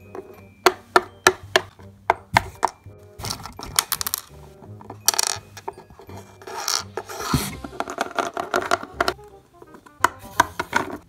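Plastic Littlest Pet Shop figurines and small toy accessories being handled on a tabletop: a string of sharp clicks and taps as they are set down, with stretches of scraping as they are slid along the surface. Background music plays underneath.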